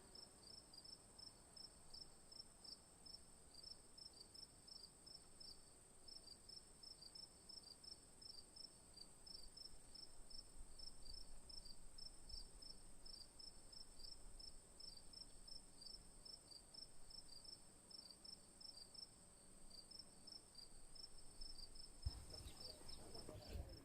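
Faint chorus of crickets: a steady high-pitched trill with a rapidly repeated chirp below it. There are a few brief knocks near the end.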